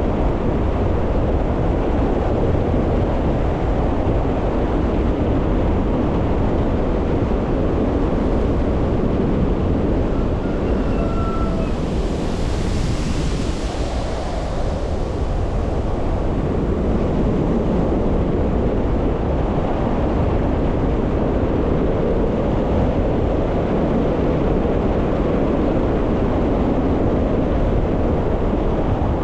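Wind rushing over the microphone of a camera on a moving bicycle, a loud, steady rumble, with a faint short tone about a third of the way in.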